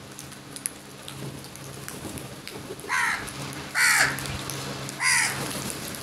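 Flock of house crows feeding: light scattered ticks of beaks pecking at grain on concrete, then three loud caws about a second apart in the second half.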